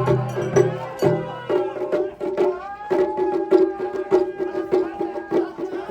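Japanese festival music (matsuri-bayashi): a held, sliding melody over quick, sharp percussion strikes.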